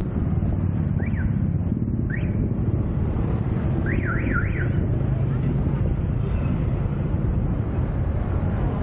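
Wind buffeting the microphone of a camera on a moving bicycle, a steady low rumble, with a few quick whistle-like chirps that sweep up and down in pitch: single ones about one and two seconds in, and a fast run of three about four seconds in.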